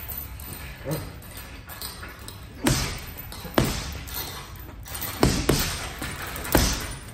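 Gloved punches landing on a hanging heavy bag: about six solid hits at uneven spacing, two of them in quick succession about five seconds in.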